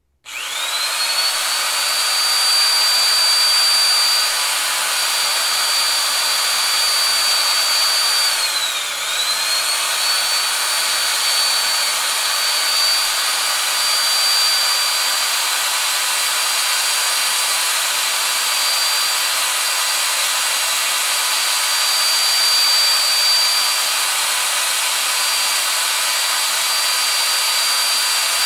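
Power drill motor starting up and spinning with a high, steady whine. About nine seconds in, its speed briefly drops and then climbs back to full speed.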